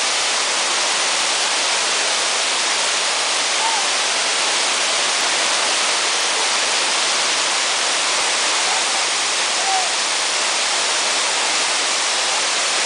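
Waterfall rushing: a loud, steady hiss of falling water, with a few faint short chirps over it now and then.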